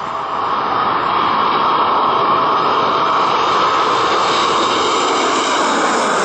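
Boeing 747-8 on final approach with gear down, passing low overhead: the jet rush of its four GEnx turbofans swells in the first second, then holds loud and steady.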